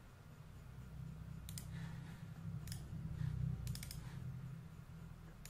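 A handful of faint computer mouse clicks in small groups, over a low steady rumble.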